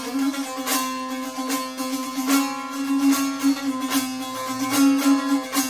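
Tanbur, the Kurdish long-necked fretted lute, played with the fingers: a melody strummed over a steady ringing drone note, with sharp accented strokes every second or so.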